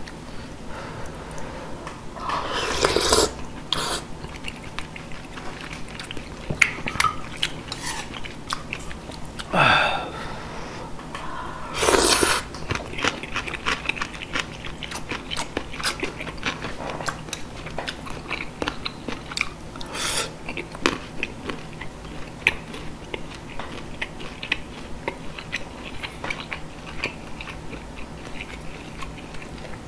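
Close-miked eating of spicy beef soup: chewing with many small wet clicks and smacks of the mouth. Three longer, louder rushes of air at the mouth come about 3, 10 and 12 seconds in.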